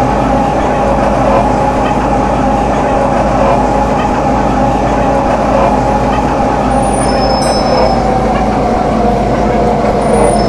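MTR M-Train electric multiple unit running on the line: a steady rumble of wheels and traction equipment with a humming tone that sinks slightly in pitch in the second half. Two brief, faint high beeps come about seven and ten seconds in.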